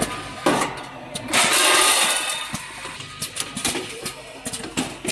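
Automatic pouch packing machine running: irregular mechanical clicks and clatter, with a loud rush of hissing air about a second and a half in that lasts about a second.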